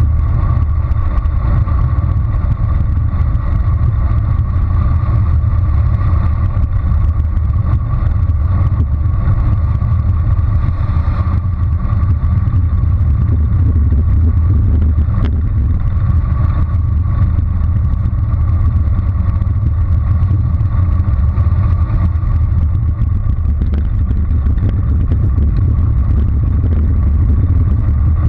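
Steady, loud wind rumble on a bike-mounted GoPro's microphone during a fast bicycle descent, mixed with tyre noise from rolling over rough, patched asphalt.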